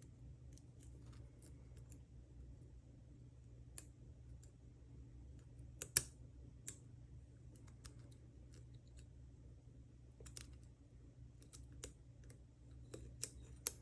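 Lock pick and tension wrench faintly clicking and scraping in the pin-tumbler core of a Trimax round-body padlock as it is picked, with scattered light clicks and a louder pair of clicks about six seconds in. A steady low hum sits underneath.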